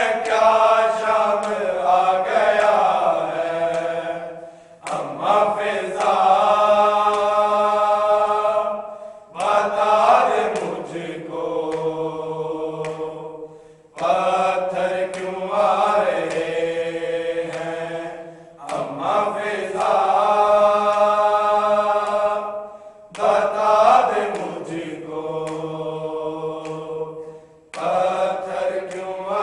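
A group of men chanting a noha, a Shia lament, in unison and unaccompanied. Each long sung phrase lasts about four to five seconds, opens with a sliding rise in pitch and ends in a brief pause for breath before the next.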